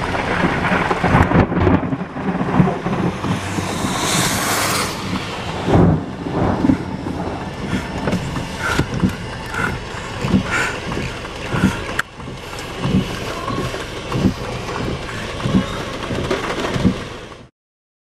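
Severe-thunderstorm wind rushing and buffeting the camera's microphone, a loud steady roar broken by irregular low thumps. It cuts off suddenly near the end.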